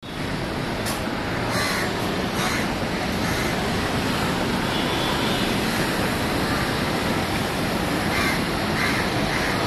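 Steady street traffic noise from passing cars and auto-rickshaws, with crows cawing a few times: twice around two seconds in and several times near the end.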